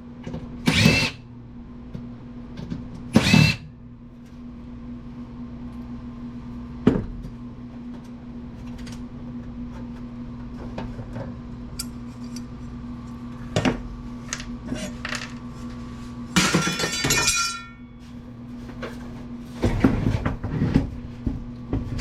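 Power drill/driver run in short bursts to back out the amplifier's chassis fasteners, with sharp metal clicks and clinks between the bursts; the longest run, about 16 seconds in, rises to a high motor whine. A steady low hum runs underneath.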